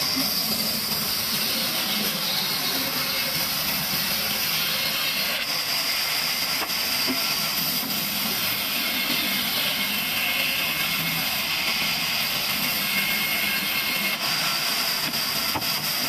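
Large band saw running and ripping a thick timber beam lengthwise, a steady saw noise with a few faint clicks.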